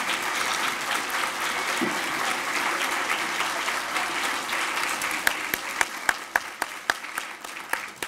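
Large audience applauding. Dense clapping thins after about five seconds into scattered single claps that die away near the end.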